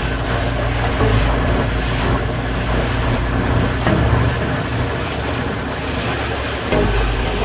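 Small boat under way on the sea: a steady low engine drone, with water rushing and wind buffeting the microphone.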